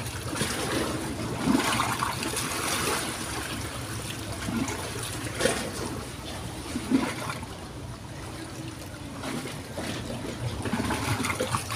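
River water trickling and flowing steadily, with a few brief louder moments.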